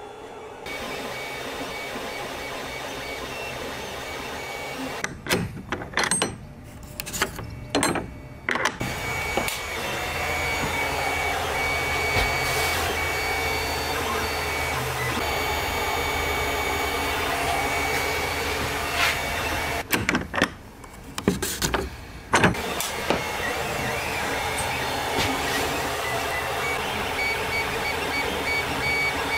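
Filament 3D printer at work: its stepper motors whine and whir in shifting tones as the print head and bed move, over the steady hum of the cooling fan. The sound drops out briefly a few times.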